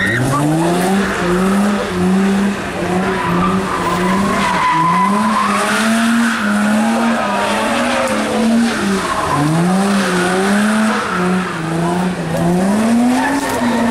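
Infiniti G35 coupe's V6 revving hard while spinning donuts, its pitch rising and falling every second or so as the throttle is worked, over the continuous squeal of spinning rear tyres on asphalt.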